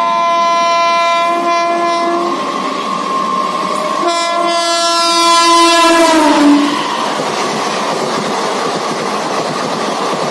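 WAP-4 electric locomotive sounding its horn in two long blasts as it approaches. The second blast drops in pitch as the engine passes at speed. Then comes the steady rush and clickety-clack of its coaches going by.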